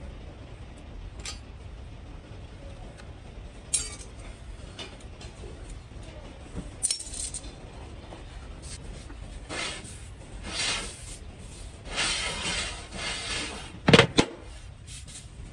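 Scattered metallic clinks and clacks of parts being handled in a workshop, with stretches of scraping in the middle and one heavy knock near the end, over a steady low rumble.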